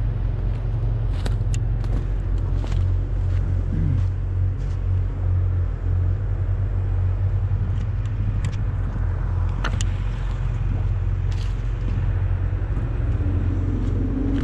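Diesel engine of a feller buncher running steadily at a low, even rumble. Short crackles of dry leaves and twigs underfoot break in now and then.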